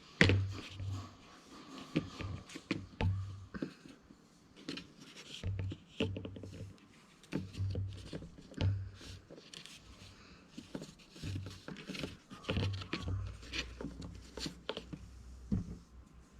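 Irregular clicks, taps and low knocks of hands and small sculpting tools working at a table.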